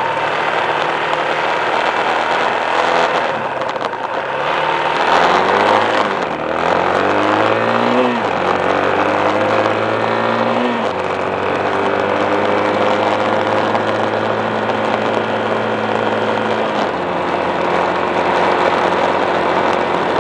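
Motorcycle engine pulling away: the revs climb, drop at an upshift about eight seconds in, climb again, then settle into a steady cruise.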